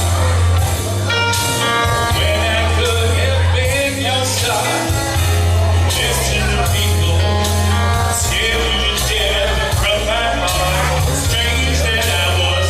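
Loud rock music with a singer, a heavy bass line and a steady drum beat.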